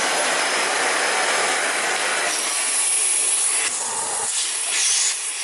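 Miele C3 Brilliant canister vacuum with its 1850-watt motor running at full power, a loud rush of air with rubbing as the floor head moves. About four seconds in the low rumble drops away and the sound turns thinner and hissier.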